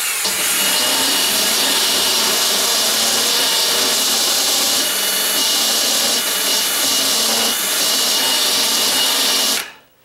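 Cordless drill running steadily with a bit held against the deadbolt strike opening in a security screen door frame, grinding off a sharp edge, with a high whine over it. It stops suddenly shortly before the end.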